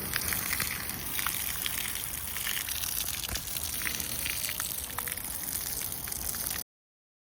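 Campfire burning with a steady hiss and frequent small crackles and pops. It cuts off abruptly shortly before the end.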